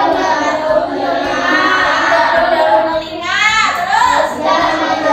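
A class of young schoolchildren singing together in unison, loud and continuous.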